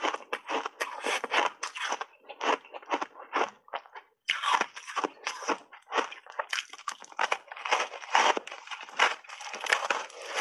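Close-miked crunching of a powder-coated block of ice being bitten and chewed: a dense run of sharp crunches with a brief pause about four seconds in.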